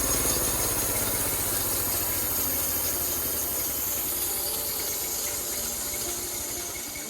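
Homemade sawmill's engine winding down: its pulses slow steadily and the sound fades, as if the engine has been throttled back or shut off.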